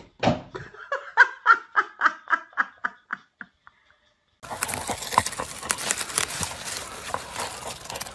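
A person laughing hard in a rapid run of about a dozen 'ha' bursts that fade out after about three and a half seconds. After a short silence, a dog digging and nosing in garden soil among leaves makes a steady rustling, scrabbling noise with scattered clicks.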